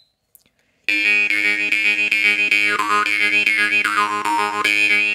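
Steel jaw harp (a Masko vargan from a tuned set) played with quick, regular plucks about four times a second, beginning about a second in. Its steady drone carries a melody of overtones that rise and fall as the mouth shape changes.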